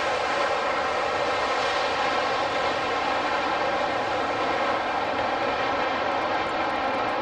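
Boeing 747-400's four General Electric CF6-80C2 turbofan engines running with a steady whine of many layered tones as the jet rolls along the wet runway after landing.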